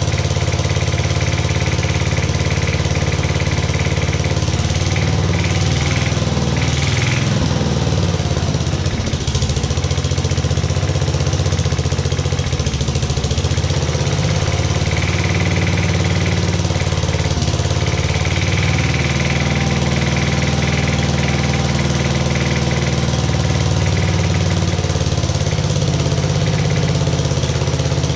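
Freshly rebuilt Briggs and Stratton model 23A single-cylinder, air-cooled engine running steadily on its first cold start. Its speed wavers a little a few times.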